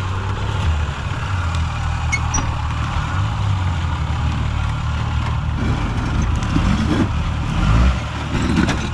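Four-wheel-drive vehicle's engine running steadily at low revs.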